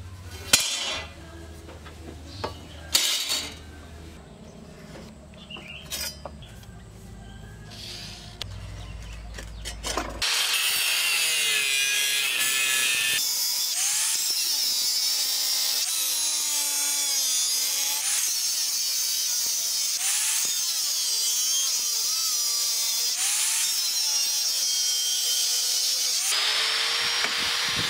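A few metal clanks as steel parts are handled on a metal workbench. Then, about ten seconds in, an electric angle grinder starts cutting steel plate with a loud, continuous, high-pitched screech, its pitch dipping and recovering as the disc bites into the metal, until it cuts off at the very end.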